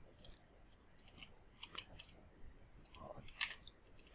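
Faint, irregular clicks of a computer mouse.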